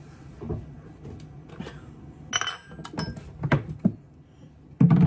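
Kitchen utensils clinking and knocking on a mixing bowl while flour and baking powder are measured in. There is a ringing clink about two and a half seconds in, a few more knocks after it, and a louder thump near the end.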